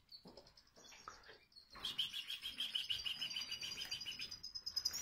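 European goldfinches (parva subspecies) calling: a few faint chirps, then about two seconds in a louder, fast, continuous twittering song sets in.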